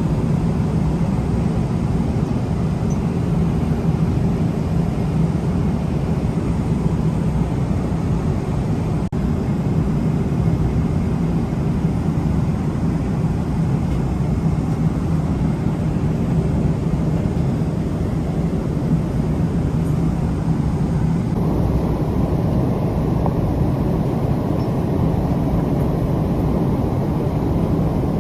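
Airbus A380's steady engine and airflow rumble, a deep hum that holds throughout, with a sudden change in tone about three quarters of the way through.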